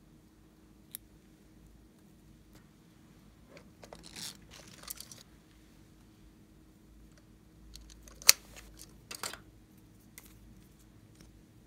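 Small handling sounds of plastic containers and toys on a tabletop: scattered light clicks and short crinkly rustles, with one sharp click about eight seconds in.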